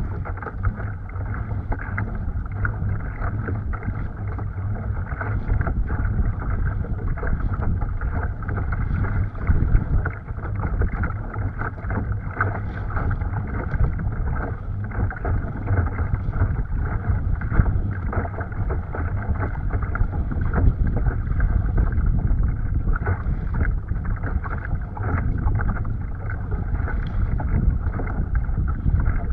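Wind buffeting the microphone over choppy water splashing and slapping against the hull of a pedal kayak under way, as a steady rough rush without a break.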